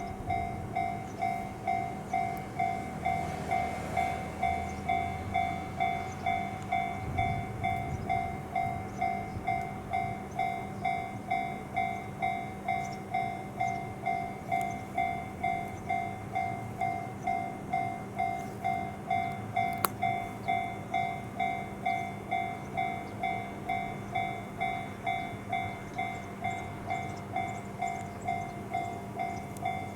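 Japanese level-crossing warning bell ringing steadily, about two dings a second. A JR Ryomo Line train rumbles low under it in the first several seconds, and there is a single sharp click about two-thirds of the way through.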